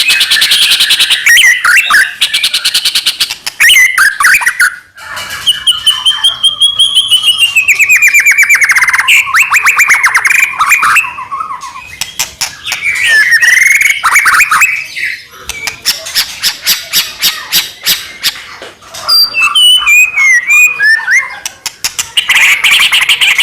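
White-rumped shama (murai batu) singing loudly and without let-up: a fast, varied song of rapid rattling runs, chatters and gliding whistled phrases, with only brief pauses.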